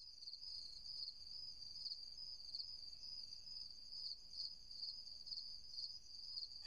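Crickets chirping: a faint, steady high-pitched chirring that pulses evenly.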